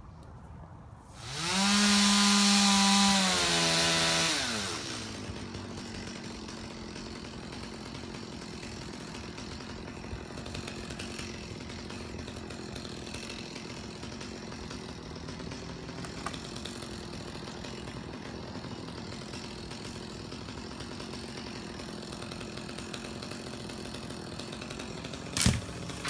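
Chainsaw revved hard for about three seconds, then throttled off with its pitch falling. A quieter steady sound follows, and there are two sharp clicks near the end.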